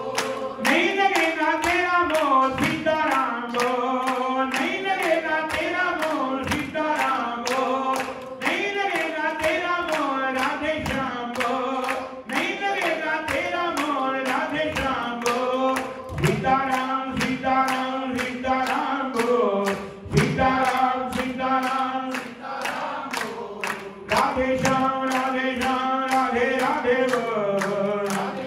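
Group singing a Hindu devotional kirtan chant, the voices repeating the same short melodic phrase about every four seconds over a steady rhythmic beat.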